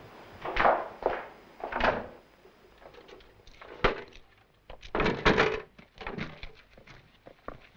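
Irregular wooden knocks and thuds of a door, then footsteps on a cobbled street, loudest in a cluster about five seconds in.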